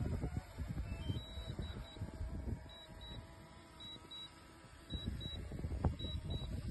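Short high electronic beeps from the drone's controls, in pairs about once a second, starting about a second in. Wind buffets the microphone underneath, easing off in the middle and picking up again near the end.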